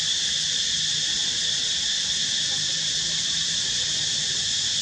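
Steady, high-pitched drone of a dense insect chorus, unbroken and even in level.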